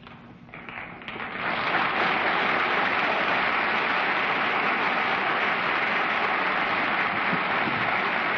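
Studio audience applauding, building up over the first second or so and then holding steady.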